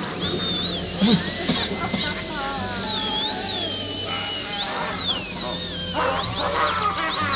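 Horror sound effect: many high-pitched tones wavering and swooping over one another above a steady low hum, with a drill-like mechanical whine.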